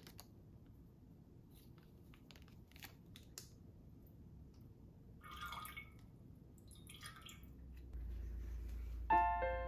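Small clicks and crinkles of a flower-food sachet being torn open and handled, then two short trickling sounds as the nutrient goes into a glass vase of water. Piano music starts near the end.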